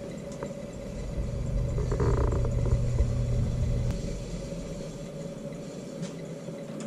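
A low vehicle rumble that swells for a couple of seconds and then fades, under a steady hum.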